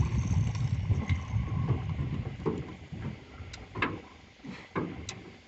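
Low rumble of wind and handling noise, with a few scattered knocks and thumps against the boat as the big catfish is laid down on the deck.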